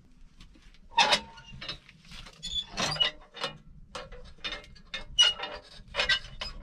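An irregular string of sharp clicks, knocks and light metallic rattles, about a dozen over the few seconds, from hands working at a small sheet-metal wood stove, the sounds of tending the fire.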